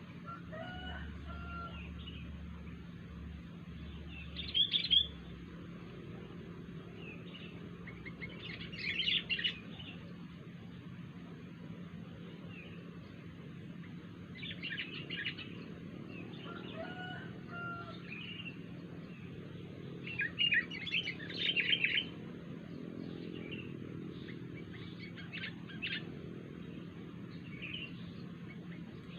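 Sooty-headed bulbul (kutilang) calling in short bursts of chirping notes every few seconds, with a steady low hum underneath.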